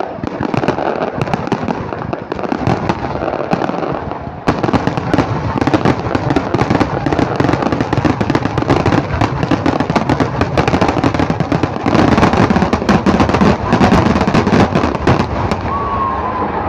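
Fireworks display: many aerial shells bursting at once in a dense, continuous crackle of pops and bangs, growing louder about four and a half seconds in.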